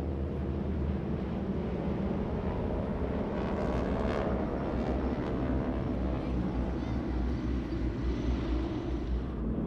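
A formation of North American T-6 Texan, Harvard and SNJ trainers flying past, their 600-horsepower Pratt & Whitney radial engines and Hamilton Standard propellers making a steady roar.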